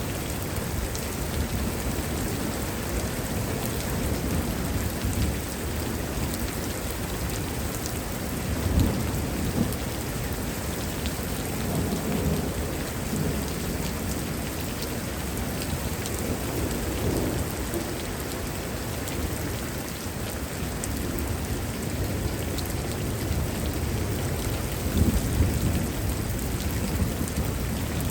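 Heavy thunderstorm: steady heavy rain with thunder rumbling off and on, the louder rumbles about nine seconds in and again near the end.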